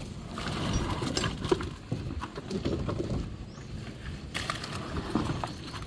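Wet concrete being tipped by hand from buckets into a staircase form and worked in, with irregular slaps, scrapes and knocks.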